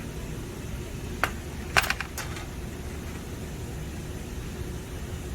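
A few sharp small clicks and taps over a steady low background hum: one about a second in, then a quick cluster of clicks shortly after, typical of hand tools and metal parts being handled.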